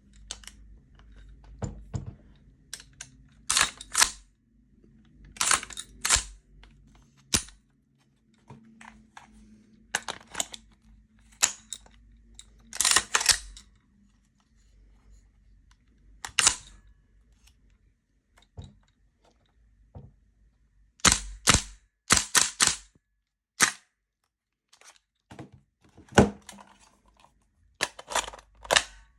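GHK Colt M4 CO2 gas-blowback airsoft rifle's steel parts clacking as the rifle is worked: sharp metallic clacks at irregular intervals, many in quick pairs or short clusters.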